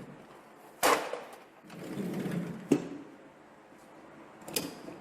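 Car parts and tools being handled while dismantling a car: a sharp knock about a second in, then rustling and handling noise with a click just before halfway, and a fainter click near the end.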